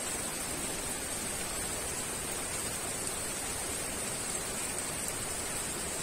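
Heavy rain falling steadily, an even unbroken hiss with a steady high edge to it.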